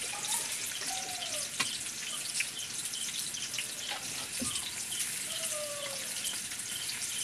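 Squash sticks deep-frying in hot oil in a frying pan: a steady sizzling hiss full of small crackles, with a few sharp clicks.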